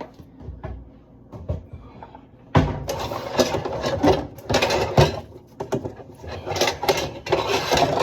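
Dishes being handled and washed in a sink: a few light knocks, then from about two and a half seconds in, continuous clattering and rubbing of dishware.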